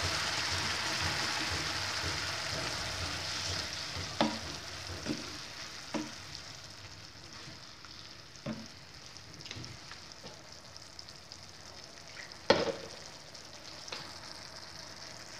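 Chicken, carrot and spring-onion filling sizzling in a nonstick frying pan with freshly added coconut milk, stirred with a wooden spatula that knocks against the pan now and then. The sizzle fades over the first half, and the loudest knock comes near the end.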